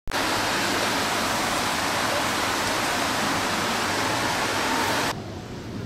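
Heavy rain falling as a loud, steady hiss that cuts off abruptly about five seconds in.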